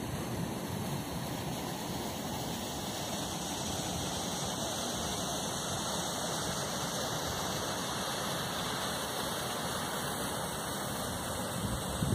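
Steady rushing of water running out through an eroded channel as a lake drains toward the sea through a breach in its beach.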